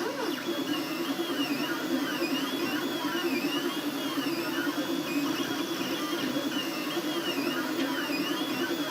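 CoreXY HyperCube 3D printer running a print: its stepper motors whine, the pitch sweeping up and down over and over as the print head moves back and forth, over a steady lower hum.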